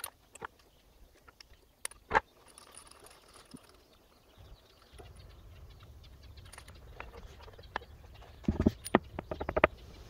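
Scattered light clicks and knocks from hands working on an outboard engine, with a quick cluster of knocks near the end. A faint low rumble comes in about halfway through.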